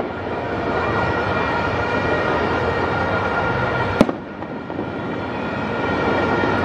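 A fireworks display going off in a dense, continuous barrage, with one sharp bang about four seconds in.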